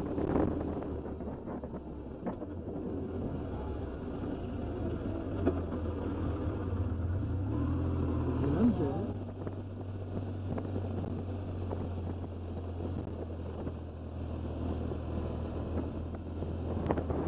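BMW R1200GS Adventure's flat-twin boxer engine running at cruising speed, heard from the bike with wind rush on the microphone. The engine note rises and grows louder a little past the middle, then settles back to a steady run.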